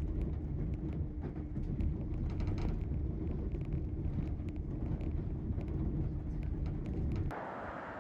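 Passenger train running, heard inside the carriage: a steady low rumble with a constant hum and scattered faint clicks. About seven seconds in, the rumble cuts off abruptly and gives way to a quieter hiss.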